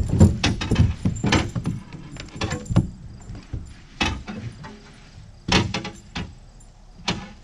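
Knocks and rattles of gear being handled on a boat's deck: a quick cluster at the start, then single knocks about four, five and a half and seven seconds in.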